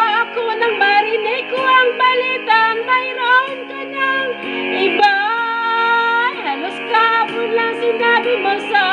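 A woman singing a ballad over instrumental backing music, holding one long note about five seconds in.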